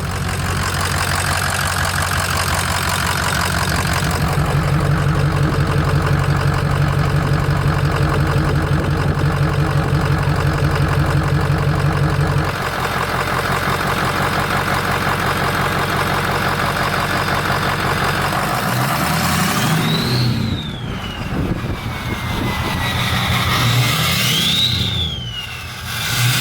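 Ford 6.0L Power Stroke V8 turbo-diesel with a KC Stage 3 turbo idling steadily. About halfway through the idle note changes. Near the end it is revved twice, and the turbo whistle rises and falls with each rev. The owner puts a slight miss in the engine down to its injectors.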